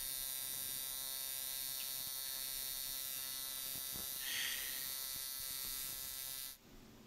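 AC TIG welding arc on 1/8-inch aluminum, a steady even buzz that cuts off suddenly near the end.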